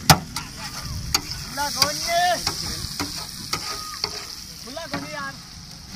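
Liver pieces sizzling on a large flat tawa griddle, with a metal spatula scraping across the hot plate and striking it with sharp clicks several times at an uneven pace.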